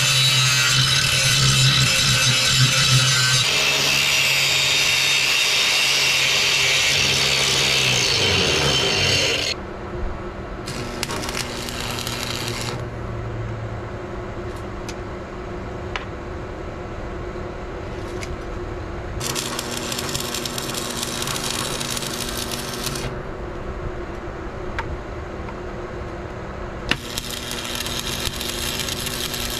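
Angle grinder grinding steel for about the first nine seconds, then cutting off. After that a stick welder's arc crackles in three bursts of a few seconds each, with a steady hum under each burst.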